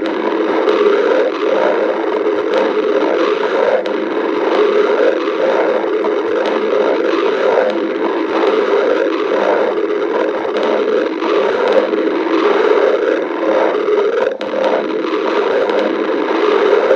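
Stomach growling: a loud, continuous rumbling growl with a rapid, uneven flutter that does not let up.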